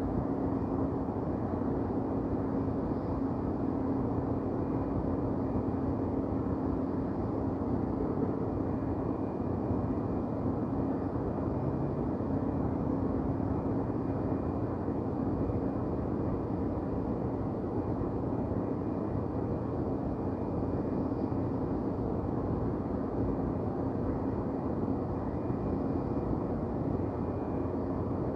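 Steady downtown city ambience: an even low rumble with a constant hum running through it, and no single event standing out.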